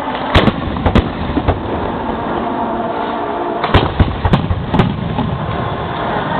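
Aerial firework shells bursting directly overhead: sharp bangs, two in the first second, then a quick run of four or five from just under four seconds in, over a steady background noise.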